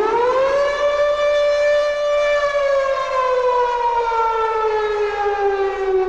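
Air-raid siren sounding an alert: it winds up to a steady wail in the first second, holds, then slowly falls in pitch.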